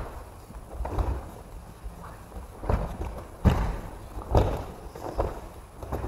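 Bodies thudding onto foam mats in aikido breakfalls as several pairs practise throws, about five separate impacts, each with a short echo from the large hall.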